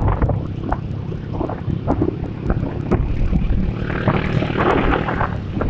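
Wind buffeting the microphone of a moving motorcycle over a low engine and road rumble, the rush of wind swelling about four seconds in.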